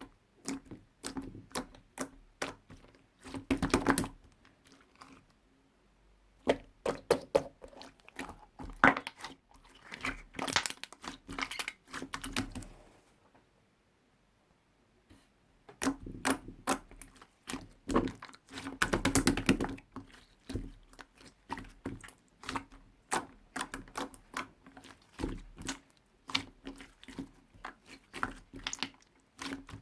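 Store-bought slime being squeezed, stretched and pressed by hand, giving rapid, irregular sticky clicks, crackles and small pops in dense runs, with a pause of about two seconds midway.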